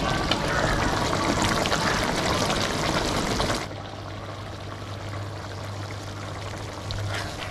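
Food frying with a dense crackling sizzle. About three and a half seconds in, it gives way abruptly to a quieter sizzle over a steady low hum.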